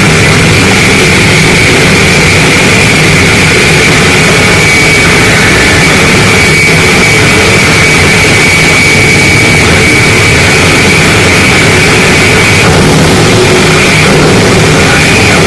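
Harsh noise music: a dense, heavily distorted wall of noise at full level with no let-up. A steady high whine runs through it over a low rumble, and the whine wavers near the end.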